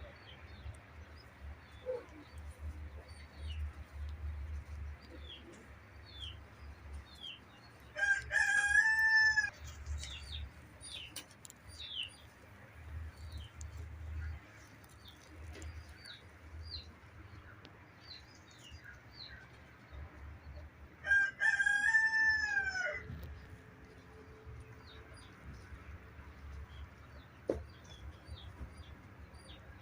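A rooster crowing twice, about 9 s and 22 s in, each crow a held call of a second and a half to two seconds. Small birds chirp briefly in the background throughout.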